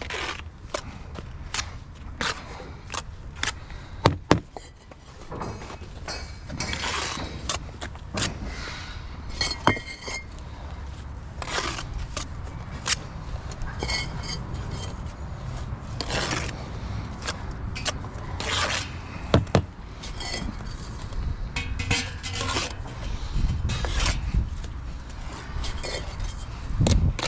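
Hand bricklaying: hard clay bricks knocking and clinking against each other as they are lifted off the stack and set down, with a steel trowel scraping through mortar. Many sharp knocks come at irregular intervals.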